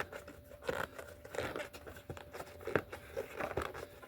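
A 29 x 2.35 bicycle tire being worked by hand on its rim to break the bead loose: irregular rubbing and scraping of rubber against the rim with short clicks, the loudest about three-quarters of the way in.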